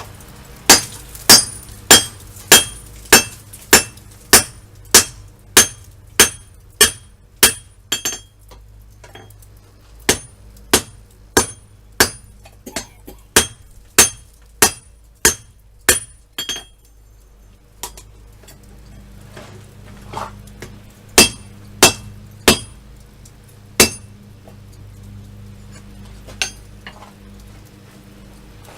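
Hammer blows on hot steel over an anvil during rough forging, each strike ringing sharply: a run of about a dozen blows at roughly two a second, a short pause, another run of about ten, then a few scattered blows near the end. A steady low hum runs underneath.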